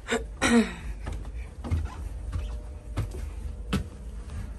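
Footsteps climbing carpeted stairs, heard as a few dull, irregular knocks and thumps over a steady low hum, with a brief voice sound at the start.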